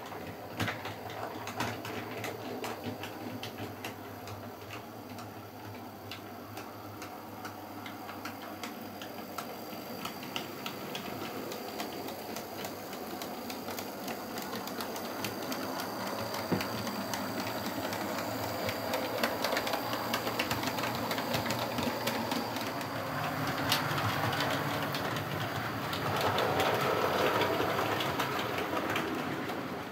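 Model train running on the track: the small electric motor whirs while the wheels click over the rail joints, growing louder in the second half as it comes closer.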